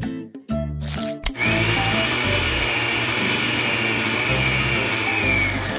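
Miniature electric hand mixer whipping cream in a small glass bowl: a click, then a steady high motor whine for about four seconds that sags slightly in pitch just before it stops. Background music plays throughout.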